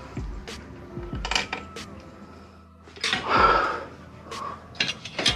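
Handling a cast aluminium Ford 460 timing cover and its bolts: scattered small metal clinks and knocks, with a louder, longer noise about three seconds in.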